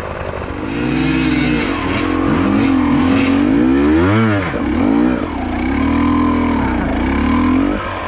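Enduro dirt-bike engines revving up and down repeatedly under throttle on a climb, with a quick rise and fall a little past four seconds in.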